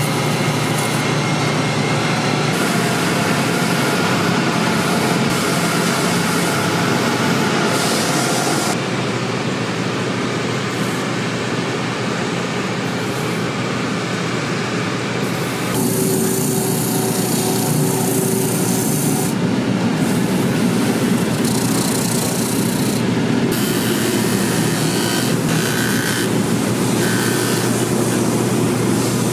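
Boot-finishing machinery running: abrasive sanding belts and wheels grinding against a boot's sole and welt edge. The sound changes character about a third of the way in and again about halfway.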